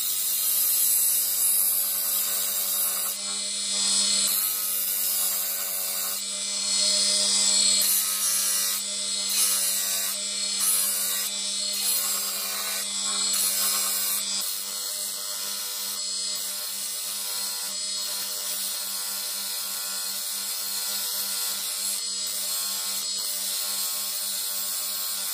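Bench grinder running with a steady hum while a wooden knife handle with a metal ferrule is pressed against its spinning wheel, giving a continuous high hiss of sanding and polishing. The hiss dips briefly now and then, and the hum weakens a little about halfway through.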